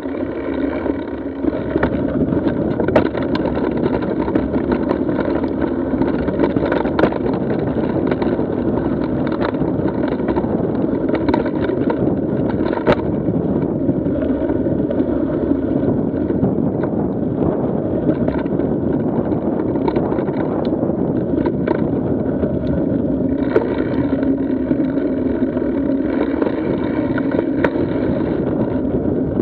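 Mountain bike riding noise picked up by a handlebar-mounted action camera: a steady rumble of knobby tyres rolling over a rocky dirt trail, mixed with wind, and frequent small clicks and knocks as the bike jolts over stones.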